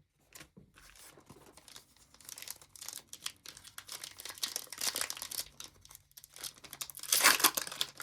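A trading-card pack wrapper crinkling and tearing as it is ripped open, a dense crackle that grows louder near the end.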